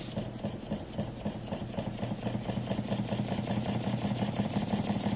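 Small double-acting model steam engine (1-inch bore, 2-inch stroke) running on compressed air, its rapid exhaust puffs and clattering motion quickening and growing louder as the air pressure is turned up to about 5 psi.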